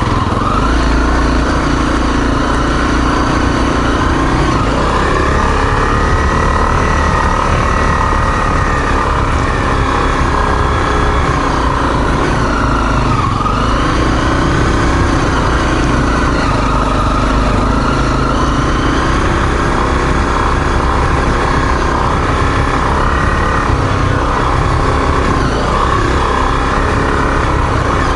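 Single-cylinder four-stroke dual-sport motorcycle engine running under a rider's throttle, its pitch rising and falling in swells every few seconds, over a steady low rumble.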